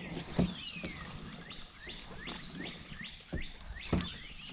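A bird calling over and over with short chirps that drop in pitch, coming every third to half second. Three dull knocks stand out above them.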